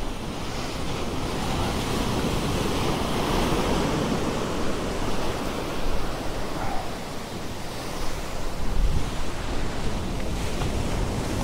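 Ocean surf breaking and washing up the beach close by, a steady rush of foam and water that swells and ebbs, with wind rumbling on the microphone.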